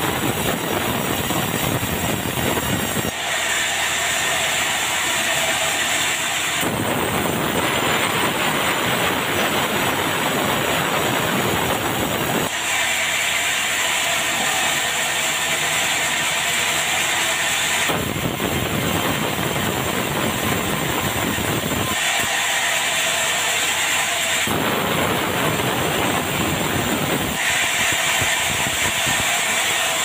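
Sawmill band saw running and ripping a large slab of red meranti into boards: a loud, steady noise of motor and blade in the wood. The sound switches abruptly several times between a fuller, deeper noise and a thinner, higher hiss.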